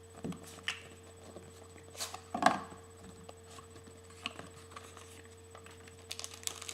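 Hands opening a cardboard trading-card box and handling the packs inside: scattered light taps and rustles, with one louder knock about two and a half seconds in and a flurry of small clicks near the end.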